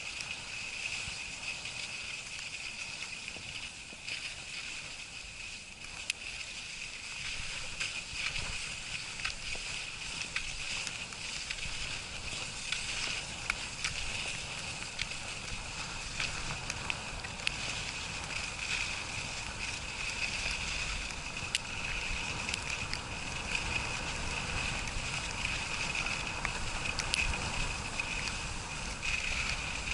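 Skis sliding over packed snow on a downhill run, a steady hiss with scattered small clicks and scrapes, and wind rumbling on the microphone, growing stronger in the second half.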